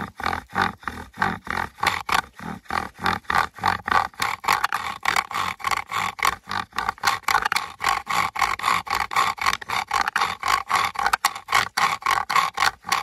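Bow drill being worked: the wooden spindle squeaks and grinds in the hearth board with each stroke of the bow, in a quick, even back-and-forth rhythm as the hearth starts to smoke.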